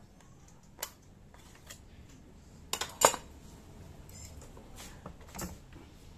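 A few sharp metallic clicks and clinks as the cover and parts of a Siruba industrial buttonhole machine are handled and taken off, the loudest about three seconds in.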